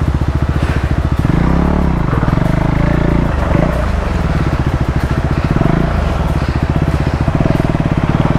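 KTM 390 Adventure's single-cylinder engine pulling at low revs over rough ground, the revs rising and falling several times with the throttle.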